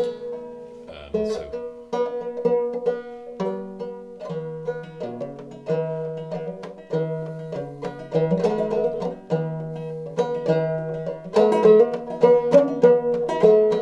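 Old flush-fret Buckbee-parts open-back banjo with Nylgut strings and a new calfskin head, played clawhammer in sawmill tuning: a steady run of plucked notes over a ringing drone string. The playing grows louder and fuller about eleven seconds in.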